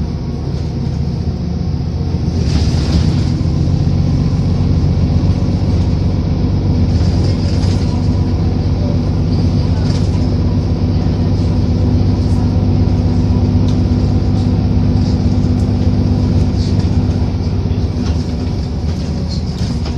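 Solaris Urbino 10 III city bus heard from inside while driving: a steady engine drone, with small rattles and clicks now and then.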